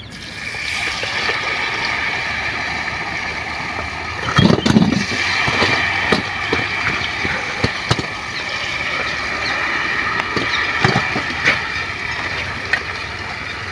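Hot oil sizzling steadily as wheat-flour pastries deep-fry in a wok, with a few sharp clinks and knocks scattered through, like a wire slotted spoon touching a steel plate.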